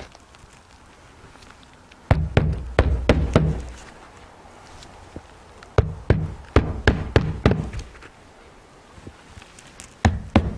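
A hammer driving roofing nails into asphalt shingles: a quick run of about six sharp knocks, about three a second, a little past the middle, with more knocks starting near the end. Before them, about two seconds in, comes a second of dull thudding and scraping as a shingle is handled and laid down.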